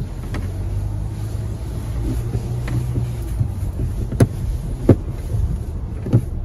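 An engine running steadily at low speed, with three sharp knocks about four, five and six seconds in.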